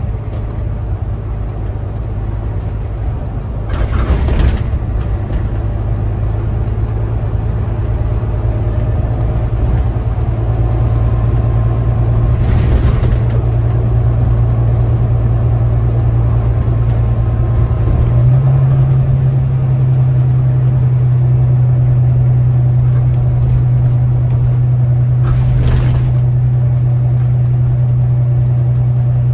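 Volvo B9TL double-decker bus under way, heard from the upper deck: a steady low engine drone that steps up a little in pitch about 18 seconds in, with road noise and three short hisses of air at about 4, 13 and 26 seconds in.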